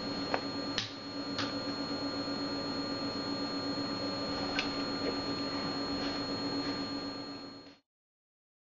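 Steady hum with a high whine over a hiss, with a few light clicks in the first seconds, cutting off suddenly near the end.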